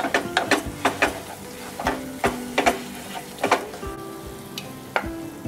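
Wooden spatula scraping and clacking against a non-stick frying pan as thick halwa is stirred, with ghee frying under it. The irregular clacks come thick and fast, then thin out after about three and a half seconds as soft background music comes in.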